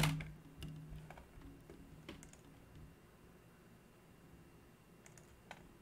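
A few faint, scattered clicks and taps over quiet room tone, with a low hum fading away in the first second or so.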